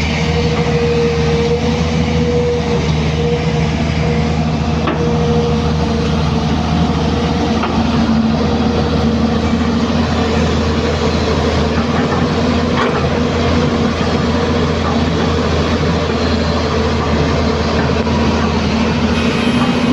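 Hyundai 215 hydraulic excavator's diesel engine and hydraulics running steadily under load, a continuous low rumble with a steady whining hum over it and a few faint knocks.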